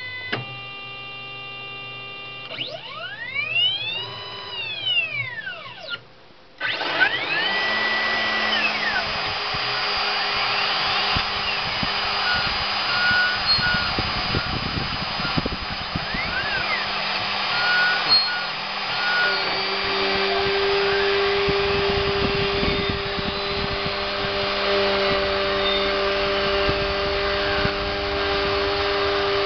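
CNC router machining PVC: the stepper motors whine in rising-then-falling glides as the axes speed up and slow down. About seven seconds in, the spindle starts and a steady cutting noise takes over, with the stepper whine still gliding above it.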